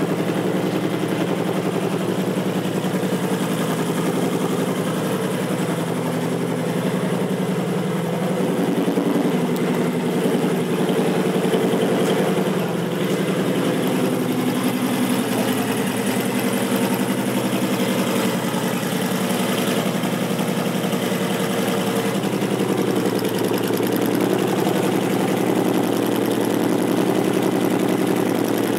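2012 Honda Fury's 1312 cc V-twin idling steadily through aftermarket Vance & Hines exhaust pipes.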